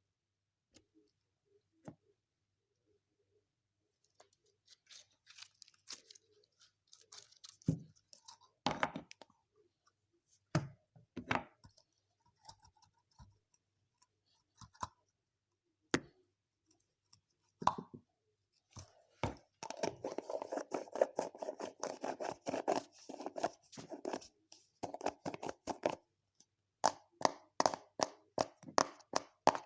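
Homemade slime being squeezed and stretched close to the microphone: sticky clicks and wet pops, sparse at first, then a thick run of squelching, then a quick series of popping squishes near the end.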